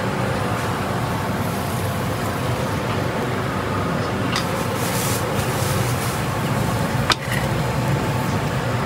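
Steady hum and rush of a hawker-stall kitchen, with a sharp click about seven seconds in.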